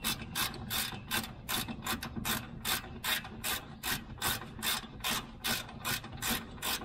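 Ratchet wrench clicking in a steady run of sharp clicks, about two or three a second, as it turns a brake caliper mounting bolt. The bolt's threads are tapped clean and coated with anti-seize, so it runs in freely.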